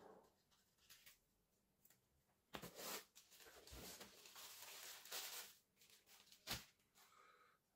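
Faint handling noise from unboxing: a few seconds of rustling as packaging is handled, then a single sharp click.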